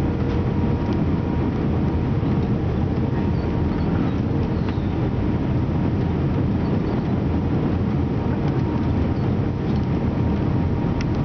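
Cabin noise inside an Airbus A320 on final approach with flaps extended: a steady, loud rush of engines and airflow. A faint steady hum rides on it and fades out about eight seconds in.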